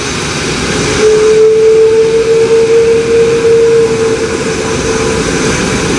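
Airbus A330 taxiing past with its jet engines at low taxi thrust: a loud, steady rush with a single whine that comes in about a second in, rises a little in pitch and fades out near the end.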